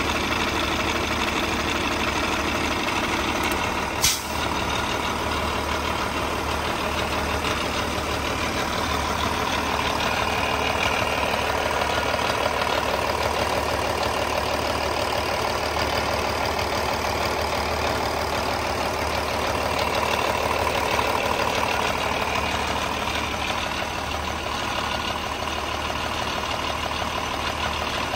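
Cummins N14 'red top' inline-six diesel truck engine idling steadily at an even speed. A single sharp click is heard about four seconds in.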